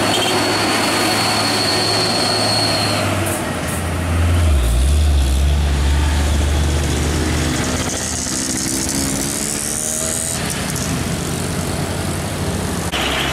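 Road traffic led by the running six-cylinder diesel engine of a Hino 500 truck pulling away, mixed with motorcycle and car engines. A thin high whine fades out about three seconds in, a deep rumble swells a second later, and a rising engine note follows a few seconds after.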